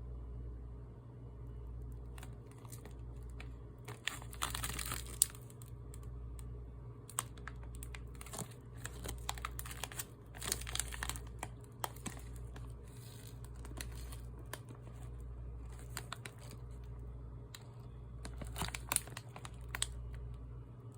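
Squid pieces sizzling and crackling on a hot griddle press grill, in bursts with sharp pops and clicks, over a steady low hum.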